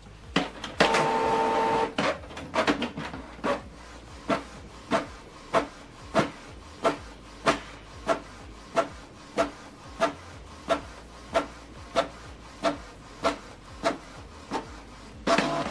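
Canon PIXMA TS7650i inkjet printer printing. A short motor whir about a second in as the paper is fed, then an even click about every two-thirds of a second as the print head shuttles across the page, and another motor whir near the end.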